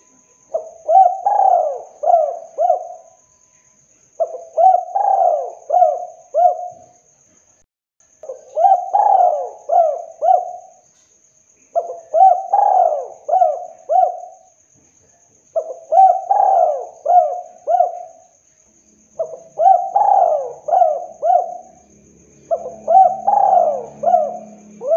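Spotted dove (tekukur) cooing its 'kuk 2' song: seven repeated phrases of several clear notes each, one about every three and a half seconds.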